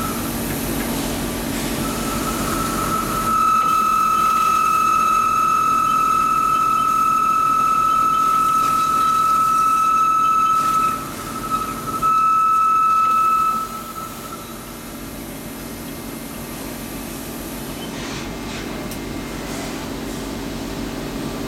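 CNC lathe machining a steel rebar coupler: a steady high-pitched whine over the machine's lower hum, breaking off briefly about 11 seconds in and stopping about 14 seconds in, after which only the quieter hum of the running machine remains.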